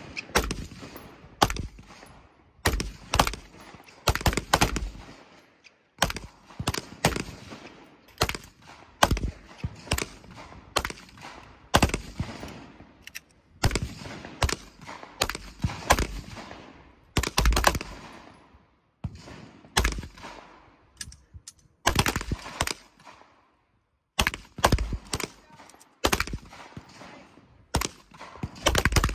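A long series of gunshots fired one at a time, about one or two a second, with a few short pauses between strings.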